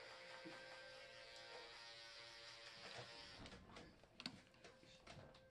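Faint steady hum of several held tones, giving way about three and a half seconds in to a scatter of light clicks and taps.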